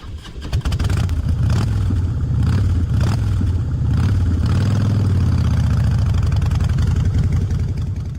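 Motorcycle engine starting up and running, its note building over the first second and then holding steady with small changes in revs.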